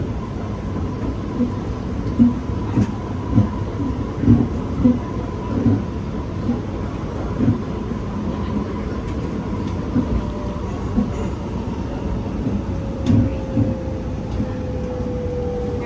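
SMRT R151 metro train heard from inside the car while running, with a steady whine and short, irregular creaks from the car over and over. A lower whine falls slowly in pitch near the end.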